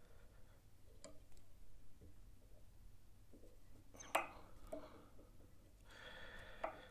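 Quiet handling noise from fly tying at the vise, with copper wire being worked around a hook: a faint tick about a second in, a sharper click about four seconds in, and a soft rustle near the end, over a low steady hum.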